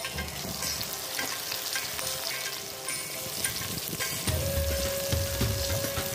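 Chicken pieces sizzling as they fry in hot oil in a wok, with a spatula stirring and turning them.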